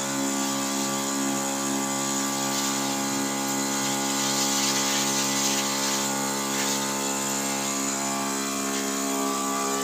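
Knapsack spray machine's pump running steadily with a constant whine, and the hiss of liquid spraying from the lance.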